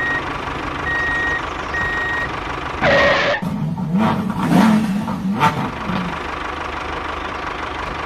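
Vehicle reversing alarm beeping about once a second over a steady engine hum, dubbed onto a toy tractor. After about three seconds the beeps stop and a low, wavering engine sound rises and falls for a few seconds.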